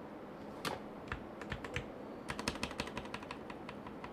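Computer keyboard and mouse clicking: a few separate clicks, then a quick run of key presses in the second half.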